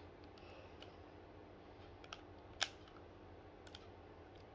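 Faint clicks of a game controller's buttons being pressed, a few scattered presses with one sharper click about two and a half seconds in, over a low steady hum.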